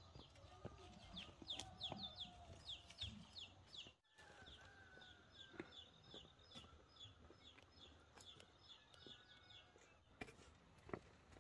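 Faint chicks peeping: a steady run of short, high, falling cheeps, a few each second, with a few lower calls and scattered clicks. There is a brief break about four seconds in.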